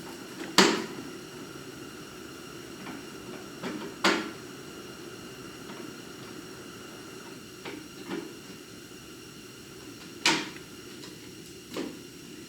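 Scattered sharp knocks and clanks, three louder ones several seconds apart and a few fainter ones, over a steady background hum.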